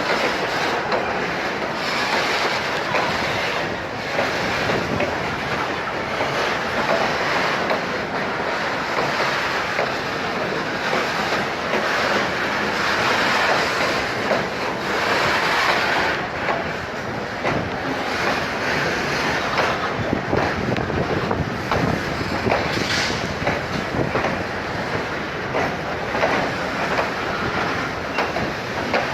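Train running along the track: a continuous rushing rumble of wheels on rail, with scattered clicks.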